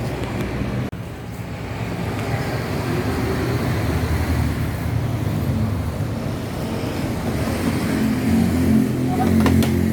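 Steady motor-vehicle rumble that swells in the last few seconds, with a couple of sharp clicks near the end.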